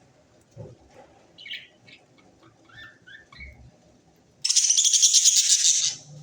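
Budgerigars giving a few short chirps, then a loud, raspy chatter that starts about four and a half seconds in and lasts about a second and a half.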